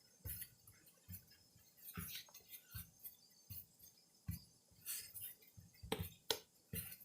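Irregular soft thumps and taps of sticky marshmallow slime being kneaded, folded and tapped down on a counter dusted with powdered sugar, with two sharper knocks about six seconds in.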